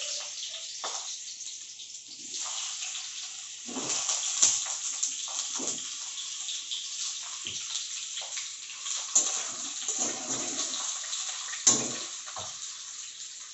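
Potato pieces frying in hot oil in a steel kadai: a steady sizzle with a few sharp spattering pops, and some knocks of a utensil.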